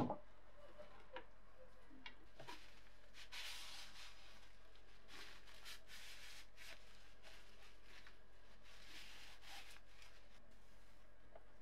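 Soft rustling and wiping of a paper towel and gloved hand skimming foamy rust scum off an electrolysis bath, in a few short swishes. A sharp click sounds right at the start.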